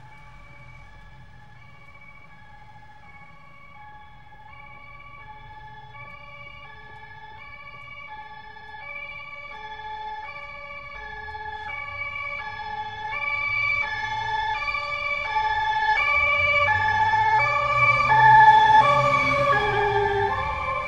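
Emergency vehicle's two-tone siren, alternating between a higher and a lower note about twice a second, growing steadily louder as it approaches, with road rumble rising beneath it; its pitch drops near the end as it passes.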